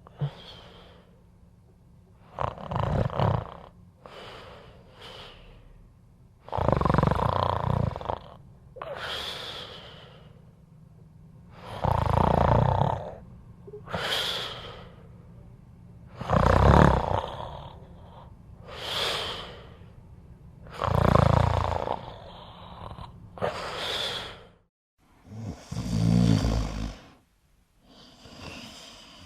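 A person snoring in a steady breathing rhythm. A loud, low snore comes on each in-breath, about every four and a half seconds, six in all. Between them is a breathy, hissing out-breath.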